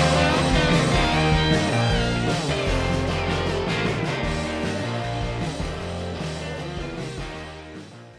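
Background rock music with electric guitar and bass, fading out gradually toward the end.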